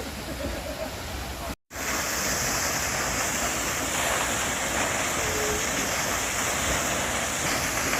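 Steady rushing of falling water from a waterfall, an even hiss that comes in louder after a short break of silence about one and a half seconds in.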